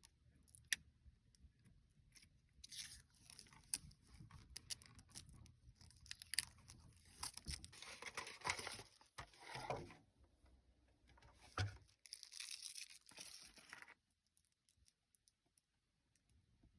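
Packaging being unwrapped by hand: bursts of rustling, crinkling and tearing, with scattered small clicks and taps, then near silence for the last couple of seconds.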